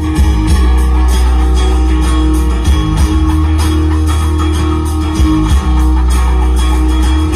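A song with guitars and a deep bass line playing loudly through a car stereo. No engine whine, hum or crackle is heard over it, which the owner takes as the sign that grounding the RCA jacks has cured the noise.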